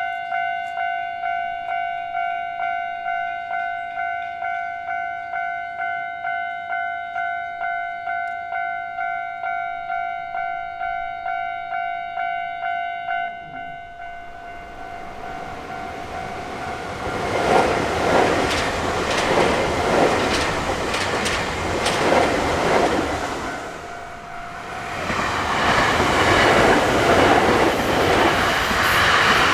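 Japanese level-crossing electronic warning bell ringing in quick, even pulses, about two a second, then dropping out about 13 seconds in. An electric commuter train then passes over the crossing, with its wheels clicking over the rail joints, easing off briefly and rising again near the end.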